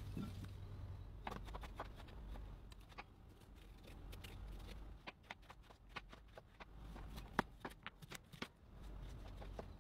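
Food preparation on a wooden cutting board: a knife and hands making irregular small clicks and taps, which come thicker from about halfway through.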